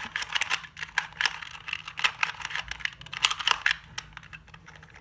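Rapid, irregular plastic clicking and clattering of a small puzzle cube being turned and handled in the hands, busiest for the first four seconds and then sparser.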